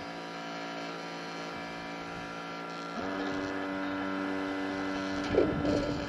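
Keurig single-cup coffee maker brewing: a steady motor hum that steps up louder about halfway through, with a brief rougher surge near the end.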